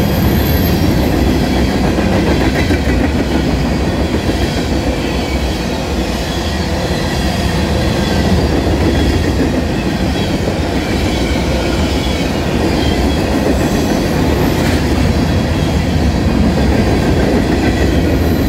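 Norfolk Southern freight train's covered hopper cars rolling past close by, a steady rumble and clatter of steel wheels on the rails.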